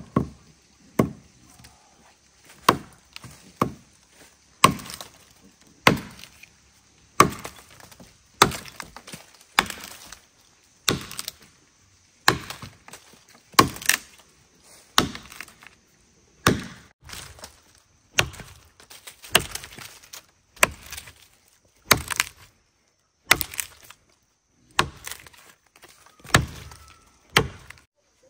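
A blade chopping into wood with steady, evenly spaced strokes, about one every second and a quarter, some twenty in a row.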